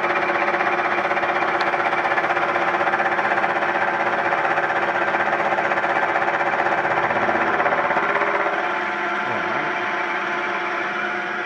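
Milling machine cutter taking a roughing cut about thirty thousandths of an inch deep, the table fed across the work by hand: a loud, steady cutting noise with a fine rapid rattle, easing off somewhat about eight seconds in.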